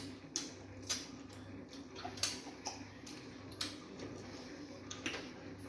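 Close-miked wet mouth and finger smacks and clicks from fufu and banga soup being eaten by hand, coming irregularly about seven times in a few seconds over a low steady hum.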